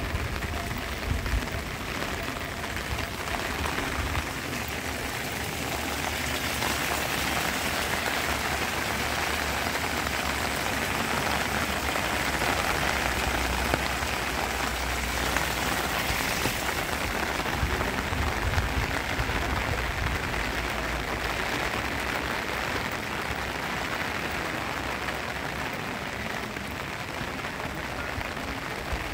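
Steady rain falling on wet paving stones: an even hiss with no breaks.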